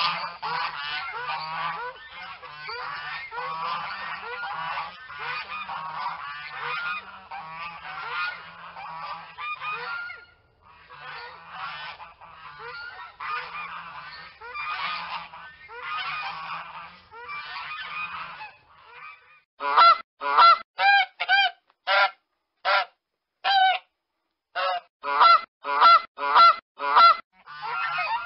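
Geese honking. First a flock calling over one another in a dense, continuous clamour with one brief pause. From about two-thirds in come about a dozen separate loud honks, one at a time with silence between.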